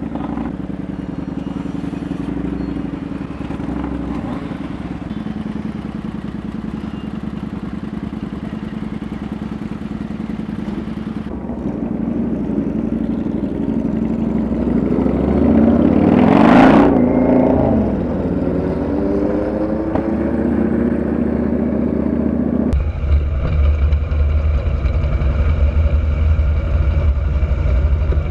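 Kawasaki VN900 cruiser's V-twin engine running on the move, with road and wind noise. The sound swells to its loudest a little past halfway and changes abruptly near the end.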